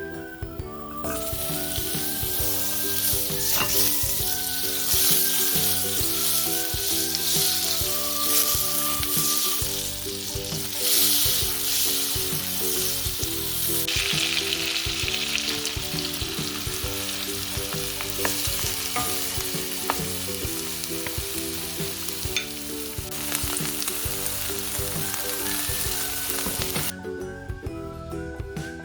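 Food sizzling as it fries in a hot pan, with a few sharp utensil clicks as it is stirred. The sizzle starts about a second in and stops shortly before the end. Background music with a light melody plays underneath throughout.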